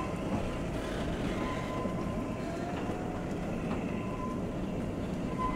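Narrow-gauge passenger train running along the track, heard from inside a coach as a steady rumble of wheels on rails. A faint thin squeal comes and goes as the coaches round a curve.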